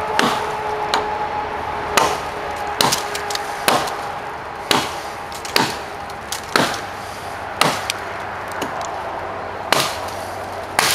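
Gränsfors Bruks Hunter's Axe chopping into a hard log, a sharp chop about once a second, roughly a dozen blows.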